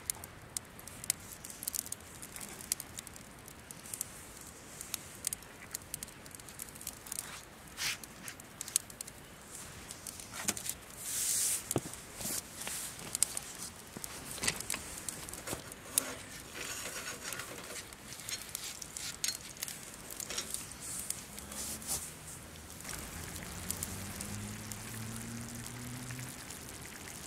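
Wood fire crackling and popping in an open fire stand, with irregular sharp snaps over a steady hiss. A brief louder hiss comes about eleven seconds in.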